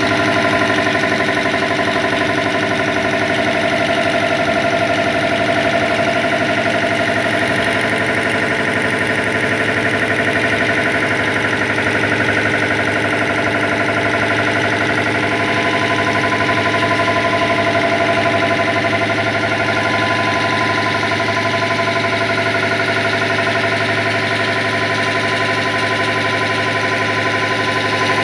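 A 5 HP air compressor driven by a three-phase electric motor, running steadily and loudly with an even, unchanging hum.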